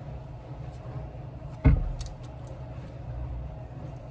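Handling of an AirPods charging case and earbuds: one heavy thud a little over one and a half seconds in, followed by a couple of small sharp clicks, over a steady low hum.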